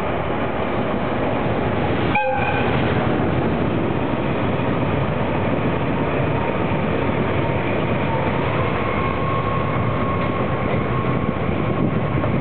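DE10 diesel locomotive and Kiya 97 rail-transport cars rolling slowly past, a steady rumble of engine and wheels on the track. A brief high note sounds about two seconds in, and from about halfway a steady high whine comes in that steps up slightly in pitch.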